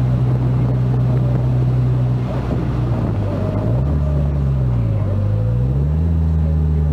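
Engine of the vehicle carrying the camera, running steadily as it drives along. Its pitch dips about four seconds in, then rises again a second or so later and holds.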